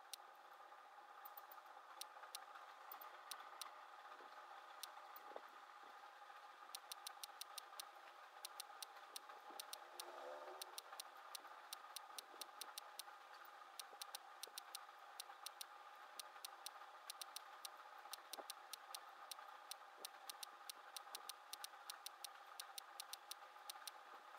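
Computer mouse clicking in quick runs, sped up by fast-forwarding, as edges are picked one by one, over a faint steady hum.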